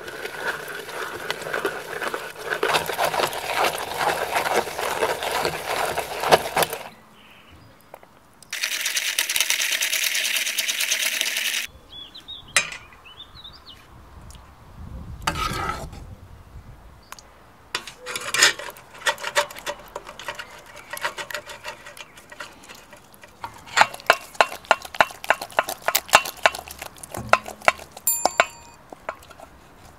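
Hand-cranked tomato food mill turning, its metal blade scraping and squishing cooked tomatoes against the perforated plate for about seven seconds. A steady hiss follows for about three seconds, then, in the last third, many sharp metallic clicks and taps as tomato pulp is pressed through a stainless steel colander.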